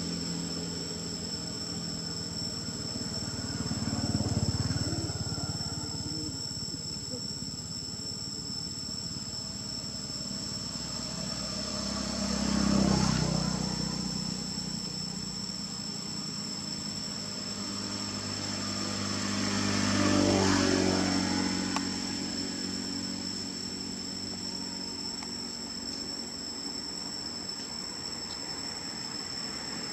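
Steady, high-pitched drone of forest insects, with motor vehicles passing in the distance: a rumble swells and fades three times, about four, thirteen and twenty seconds in, the middle one loudest.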